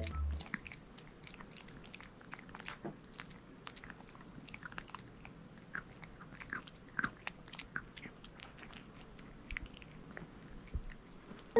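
Maltese puppy gnawing a dog chew: small irregular crunches and clicks of its teeth on the chew, close to the microphone.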